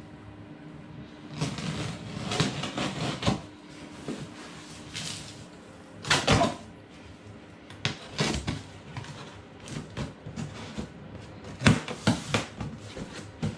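A cardboard box being cut and torn open by hand: packing tape slit and ripped, flaps and cardboard pulled about. It comes as an irregular run of scraping, tearing and rustling noises, with louder sharp ones about six and twelve seconds in.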